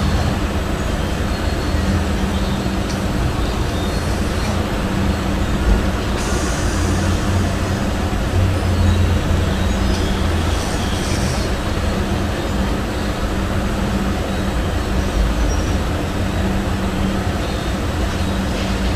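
Sleeping cat snoring close to the microphone: a steady low rumble.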